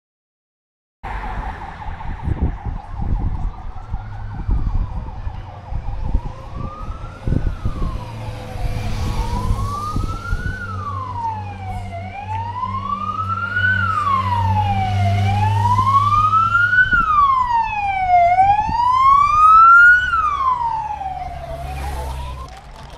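Wailing escort-vehicle siren rising and falling about every three seconds and growing louder as it approaches, over a low motorcycle-engine rumble.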